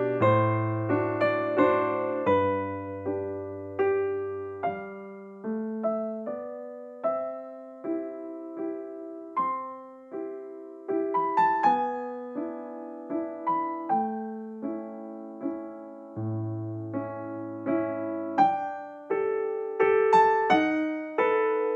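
Background music: a gentle keyboard piece, electric piano notes struck and left to fade, with low bass notes under a slow melody.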